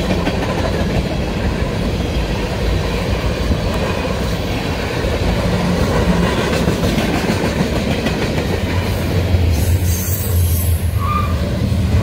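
Cars of a CN freight train rolling past close by: a steady rumble of steel wheels on the rails, with the clickety-clack of wheels over rail joints.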